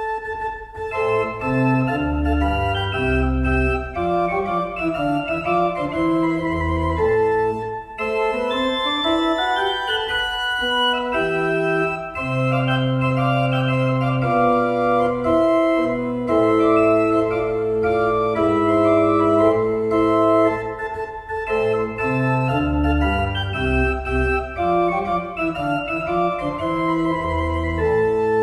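Organ music: a slow piece of sustained chords over a moving bass line.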